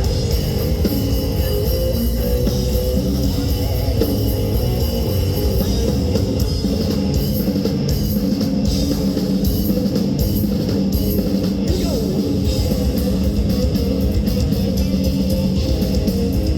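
Progressive death metal band playing live: drums and guitars at a steady, loud level.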